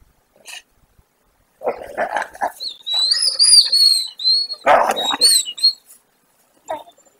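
Wolves whining in high, wavering tones for about three seconds, broken twice by short, rough snarls as they jostle muzzle to muzzle.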